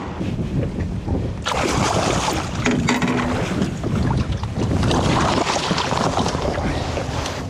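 Wind buffeting the microphone and water splashing around a small boat, getting suddenly louder and brighter about a second and a half in.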